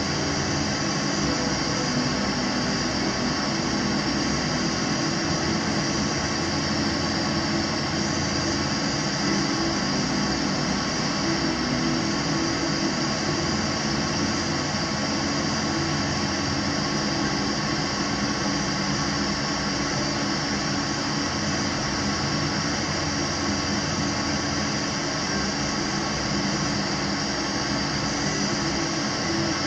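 Gas burner flame under a beaker of gold chloride solution, burning with a steady, unchanging rushing noise while the solution is heated for the oxalic acid reduction.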